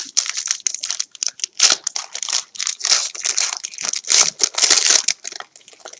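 Foil wrapper of a 2017 Panini Prestige football card pack crinkling and tearing as it is ripped open by hand, a dense run of sharp crackles that stops about a second before the end.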